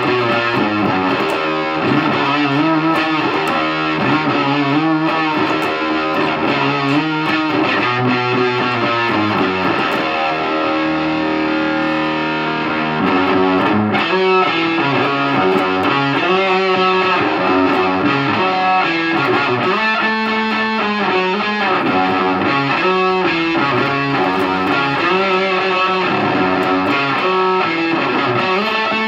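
Electric guitar played through a Visual Sound Angry Fuzz pedal into a Peavey Bandit 112 combo amp: fuzz-distorted riffs and chords played continuously.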